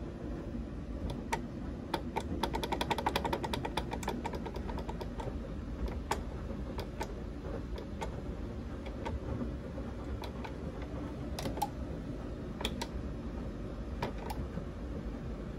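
Clicking from a Sonoff 4CH Rev2 Wi-Fi smart switch as its channel push-buttons are pressed and its relays switch. A fast run of clicks comes about two to five seconds in, then single clicks roughly once a second.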